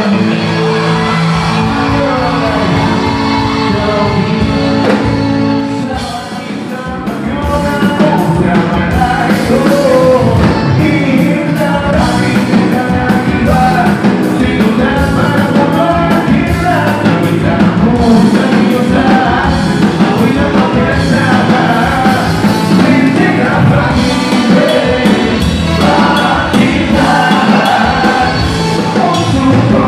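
Rock band music with a lead singer: held chords at first, then after a brief dip about six seconds in, the drums and full band come in louder and keep going.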